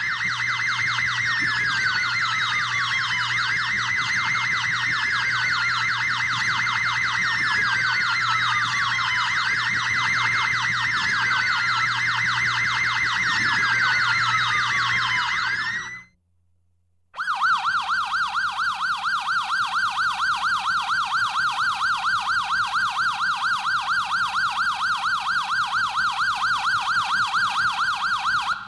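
Police car sirens. Two overlap at first: a fast yelp over a slower wail that sweeps down and back up every couple of seconds. They cut off about 16 seconds in, and after a second of silence a single siren yelps, warbling several times a second.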